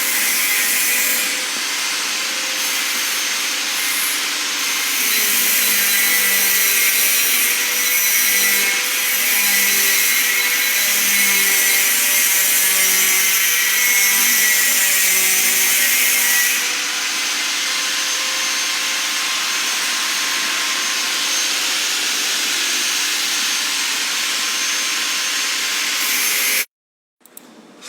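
Steady rushing, hissing machine noise with faint humming tones, from a desktop jewelry laser spot welder's cooling system running. It cuts off abruptly near the end.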